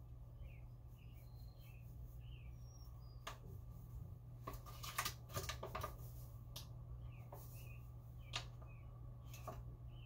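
Paper flour bag rustling and crackling as flour is poured and shaken out of it into a steel mixing bowl, loudest about halfway through, over a steady low hum. Faint high chirps come and go throughout.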